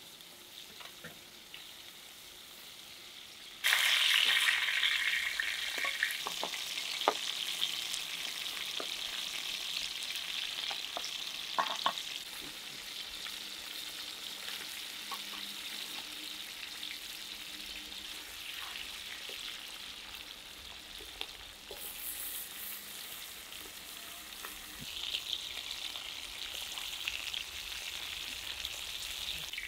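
Slices of beef tongue sizzling in hot lamb fat in a wide, shallow iron pan over a fire, with scrapes and taps of a wooden spatula and a fork as the pieces are turned. The sizzle is faint at first, comes in suddenly and loud a few seconds in, then slowly eases and swells again near the end.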